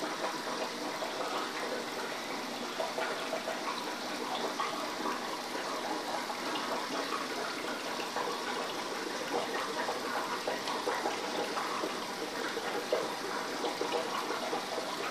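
Steady rush and trickle of water circulating in an aquarium, with a fine crackling, bubbly texture.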